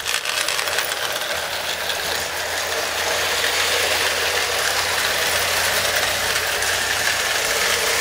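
Marx No. 666 toy steam locomotive and its tin-plate freight cars running on O-27 tin track: a steady electric motor whir with gear and wheel rattle, getting a little louder over the first three seconds.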